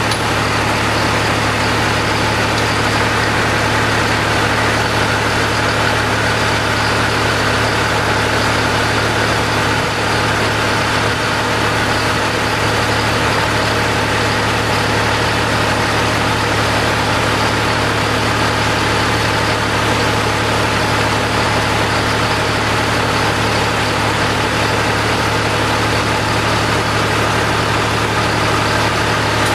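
Tractor engine running at a steady speed, driving a PTO-powered log splitter.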